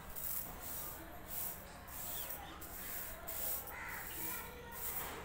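Dry lentils swished and raked across a steel plate by hand, about twice a second, as the dal is picked over. A bird calls about four seconds in.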